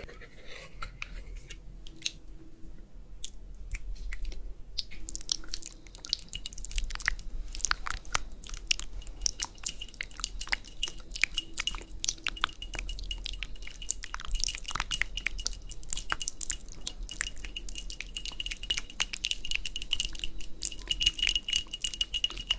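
Close-miked chewing of crunchy food, eating-ASMR style: a dense run of irregular crunches and crackles that gets busier about five seconds in. A faint steady high tone runs beneath from about nine seconds in.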